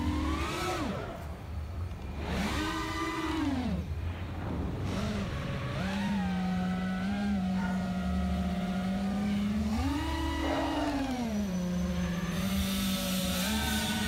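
FPV racing quadcopter's brushless motors and propellers whining, recorded by the drone's onboard GoPro: a steady buzzing tone that swoops up and back down in pitch with each throttle punch, near the start, around two to three seconds in, and again around ten seconds in.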